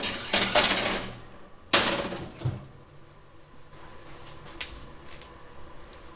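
A sheet pan of vegetables rattling and scraping onto the wire rack of a Breville countertop toaster oven, then a single sharp clack a little under two seconds in as the oven door shuts. A few faint ticks follow.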